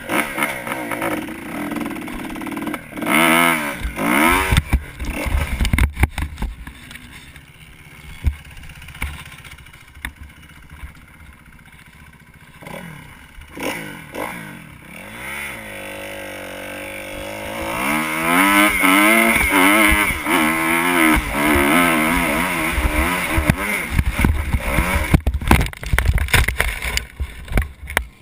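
Kawasaki KX250 motocross bike's engine revving hard off the start and through the gears, its pitch climbing and dropping again and again, with rumble from the helmet-mounted camera. A few sharp knocks near the end.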